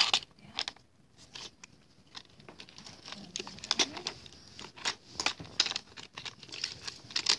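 Plastic clicks and knocks from a Hot Wheels Octopus Pier Attack playset being handled: the octopus and the lighthouse and gate pieces are worked by hand. The clicks are sparse at first and come thicker in the second half.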